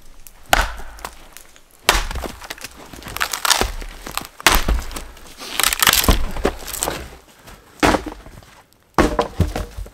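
Hatchet blows chopping into a dead, partly rotten log, the wood cracking and splintering with each strike; about eight sharp hits, roughly one a second.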